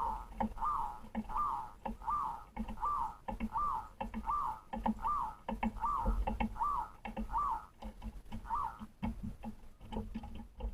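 Rhythmic lure bird call: one short whistled note that rises and falls, repeated evenly about every 0.7 seconds, some thirteen times, then stopping about nine seconds in. It is the kind of call used to rouse rival or wild birds.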